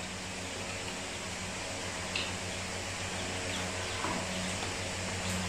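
Quiet room background with a steady low hum, broken only by a faint tick about two seconds in and another about four seconds in.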